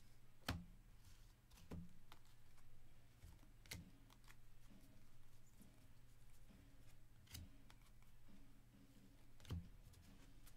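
Faint handling of a stack of 2022 Topps Series 1 baseball cards as they are flipped through, with about five sharp clicks or taps of card edges at uneven intervals over a low, steady hum.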